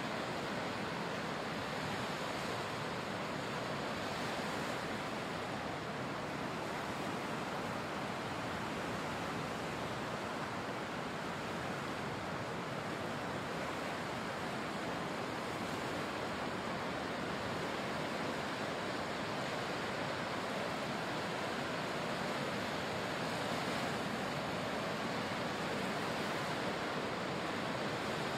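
Ocean surf: small waves washing onto a sandy beach, heard as a steady, even hiss with no distinct crashes.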